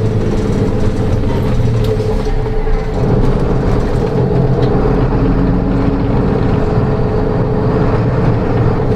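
Interior of a moving route bus: the diesel engine hums steadily under road and tyre noise, heard from inside the passenger cabin.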